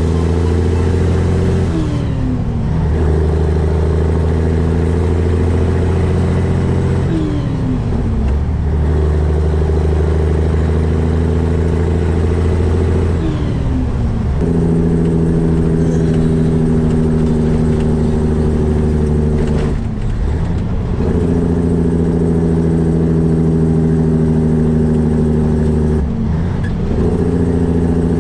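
Diesel engine of a 1984 Peterbilt 362 cabover semi-truck running on the road, with a steady drone. Five times, about every five or six seconds, the pitch drops briefly, as at a gear change.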